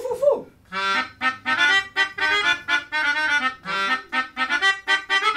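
Live music played on a free-reed instrument: a quick run of short, bright notes over a held lower note, after a brief pause about half a second in.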